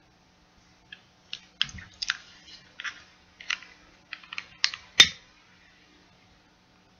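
Long-nozzle utility lighter being handled and clicked: a string of irregular small clicks from its trigger and safety switch, then one loud, sharp snap of the ignition about five seconds in.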